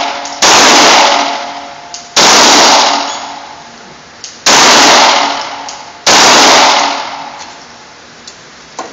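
Four handgun shots, slow and spaced about two seconds apart, each ringing on in the reverberation of an indoor range. A couple of faint clicks follow near the end.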